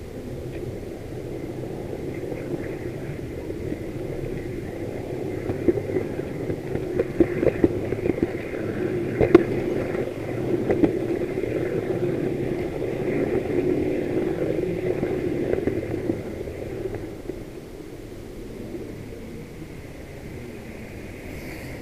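H0 model train running along the track, heard from a camera riding on the locomotive: a steady running noise from the motor and wheels on the rails, with a run of sharp clicks over the track in the middle.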